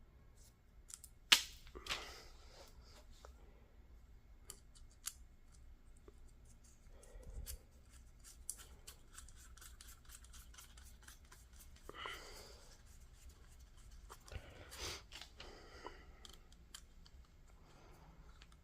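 Faint clicks, taps and rustling of small parts being handled while a replacement saber core is fitted into a lightsaber hilt, with one sharp click about a second in.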